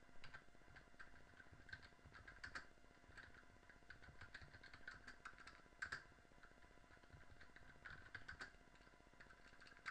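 Faint typing on a computer keyboard: key clicks coming in irregular runs with short pauses.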